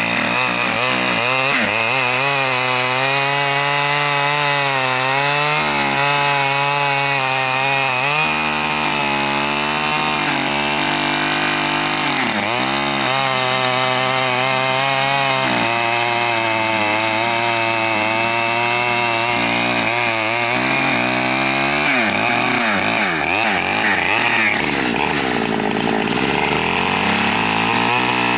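Small two-stroke chainsaw, a Stihl 009, running loud and continuously while cutting lengthwise through a log, its engine pitch wavering and dipping under load as the bar bites into the wood.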